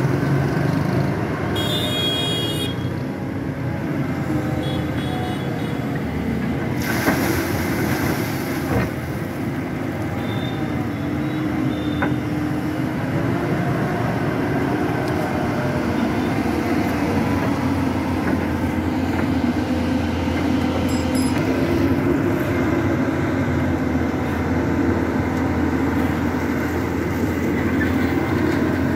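Doosan DX225LCA tracked excavator's diesel engine running steadily under load as it digs, mixed with passing motorbike engines. A few brief horn toots sound in the first ten seconds.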